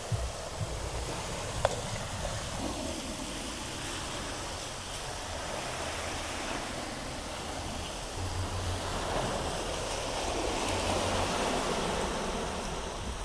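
Surf washing on the beach in a steady hiss, with wind buffeting the microphone in low rumbles. A single sharp click about one and a half seconds in.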